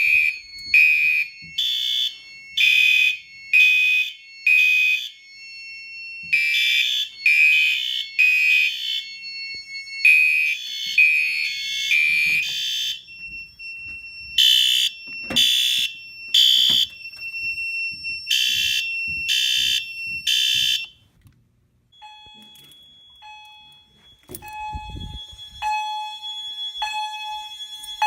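Several fire alarm horns sounding together in pulsed, repeating patterns that overlap, with a steady high tone joining partway through. About 22 s in the loud horns stop, leaving a quieter steady high tone and a beep about once a second.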